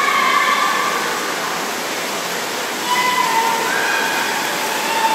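Steady, echoing din of a swimming hall during a freestyle race, water churned by the swimmers mixed with crowd noise, with spectators' drawn-out high-pitched shouts of encouragement at the start, about three seconds in, and near the end.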